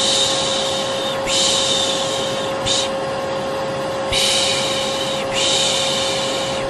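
A vacuum cleaner running steadily with a constant hum, while a person shushes 'shhh' over it again and again. Each shush lasts about a second, with a short one near the middle followed by a pause of about a second. This is the rhythmic shushing used to soothe a baby to sleep.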